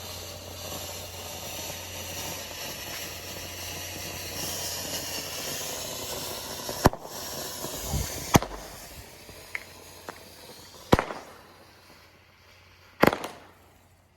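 Winda 'Garden in Spring' fountain firework spraying sparks with a steady hiss that fades after about eight seconds. Sharp reports go off about 7, 8.5, 11 and 13 seconds in.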